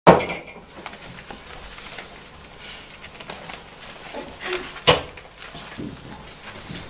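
Young puppies scuffling and wrestling on a blanket, with light rustling and pattering. A sharp knock right at the start and another about five seconds in stand out as the loudest sounds.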